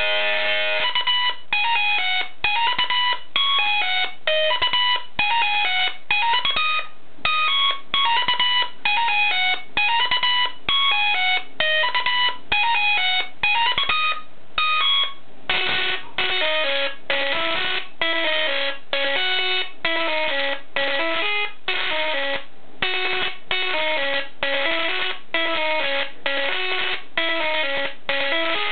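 Flyback transformer plasma arc, audio-modulated through an interrupter, playing a melody as a chain of short separate notes. About halfway through, the tune moves to lower notes.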